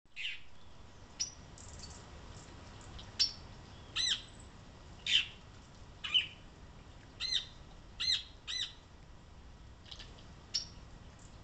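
Epaulet oriole giving short, clipped call notes that rise and fall, about a dozen spread irregularly, some in quick pairs.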